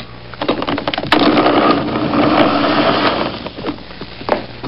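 Electric blender switched on about a second in, its motor running and chopping a whole apple to pulp for about two seconds before winding down. Knocks and clicks come before and after.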